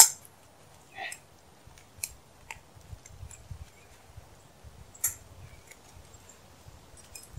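Metal clicks and clinks of a trap chain and clip being handled at a barbed wire fence. Scattered, separate clicks: the loudest right at the start, another about five seconds in.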